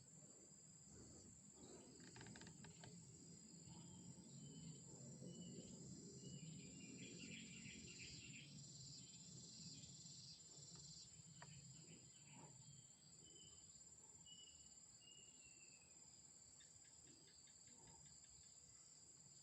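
Near silence: a faint, steady, high-pitched insect trill, like crickets, with a few short, faint, high chirps in the second half.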